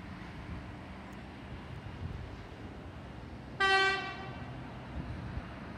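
Approaching electric suburban train sounding one short toot on its horn a little past halfway, over a low rumble from the train.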